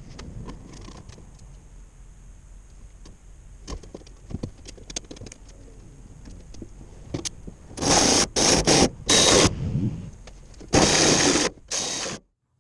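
Shop work on sheet metal: scattered clicks and light knocks, then a power tool run in several loud, noisy bursts, a few short ones and then a longer one, before the sound cuts off.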